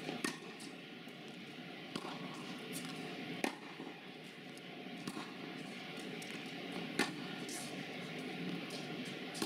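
Tennis balls being hit with a racket during a rally: about six sharp pops of racket strikes and ball bounces, spaced irregularly, over a steady faint hiss of room ambience.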